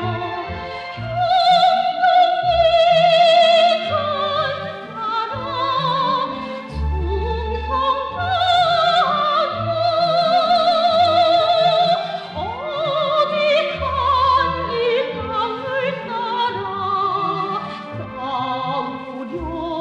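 Opera-style music: a melody of long held notes with heavy vibrato over orchestral accompaniment.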